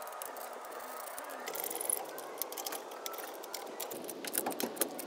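Lug nuts being threaded onto a truck's wheel studs and spun down with a crank-handle speed wrench and socket: a light metallic rattling with many small clicks.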